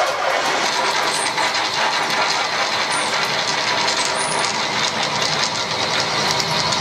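Vertical milling machine running a large twist drill through a metal plate: a steady, loud mechanical cutting noise mixed with the hiss of an air-mist coolant spray on the drill.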